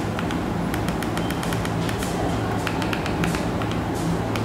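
TV remote buttons clicking at an irregular pace, a few presses a second, over a steady low hum.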